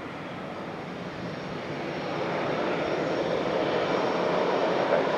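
Airliner engines running, a steady rushing noise that grows louder from about two seconds in as the aircraft draws nearer.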